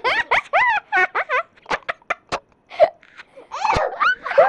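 A young child laughing and giggling in short, high-pitched bursts.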